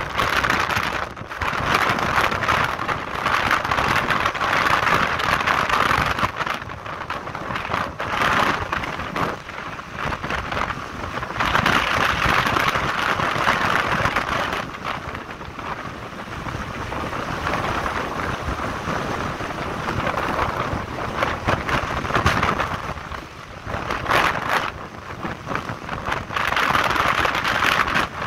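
Wind rushing over the microphone of a moving motorcycle, with the motorcycle's engine and road noise underneath. The wind noise swells and fades every few seconds.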